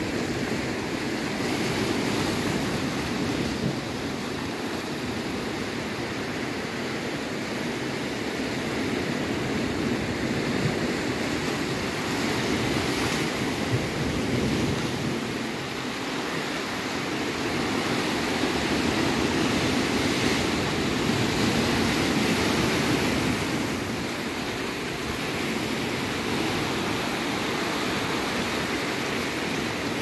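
Mediterranean surf: small waves washing ashore and breaking around rocks, a steady rushing hiss that slowly swells and eases.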